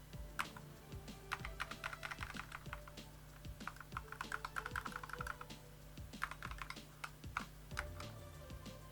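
Typing on an A4Tech Bloody B950 RGB gaming keyboard with Bloody LK Libra optical switches: irregular key clicks, with a quick run of rapid presses about four to five seconds in.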